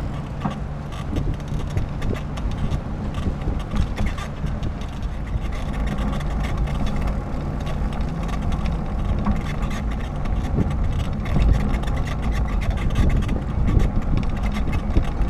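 Steady low rumble of a bicycle rolling along a paved path, picked up by a handlebar-mounted camera, with light clicks and rattles from the ride.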